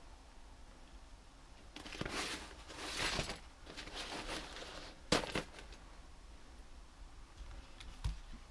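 Old newspaper rustling in short bursts as it is handled, with a sharp knock about five seconds in and a softer one near the end.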